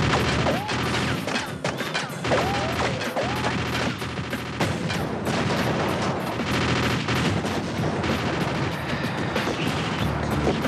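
Action-film gunfight sound effects: sustained rapid gunfire with background music underneath.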